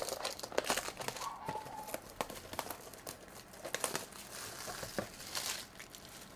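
Clear plastic shrink wrap being torn and peeled off a cardboard trading-card box, crinkling and crackling irregularly, then dying away near the end.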